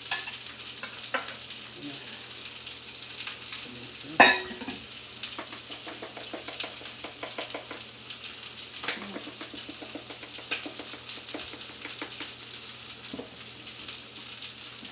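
Skin-on chicken legs sizzling steadily as they sear in a hot pan, with scattered small clicks of a utensil and one louder knock about four seconds in.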